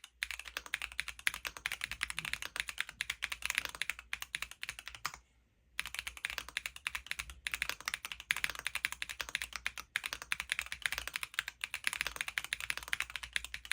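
Fast typing on an M1W mechanical keyboard with Gateron Baby Kangaroo tactile switches, a quick run of key clacks, with a brief pause about five seconds in.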